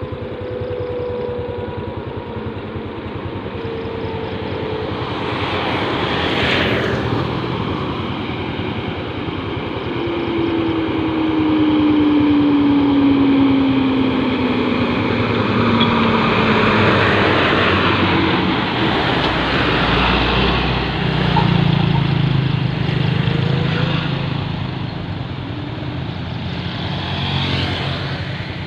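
Heavy diesel truck approaching and passing on a highway. Its engine note falls slowly over several seconds, then a deep rumble peaks as it goes by, over steady tyre and traffic noise. A shorter vehicle whoosh passes about six seconds in.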